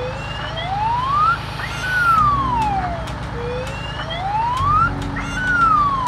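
Cartoon sound effect: a whistling tone glides up and then back down, twice, over background music with a steady beat.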